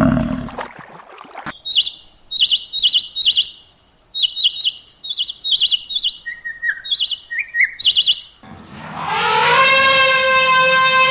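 A bird chirping in quick, short, high notes, repeated in irregular groups for several seconds. Near the end a long, steady, horn-like pitched call begins.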